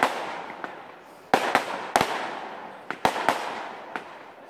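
Fireworks display: aerial shells bursting in sharp bangs, a quick run of three a little over a second in and two more about three seconds in, each trailing off in a fading echo.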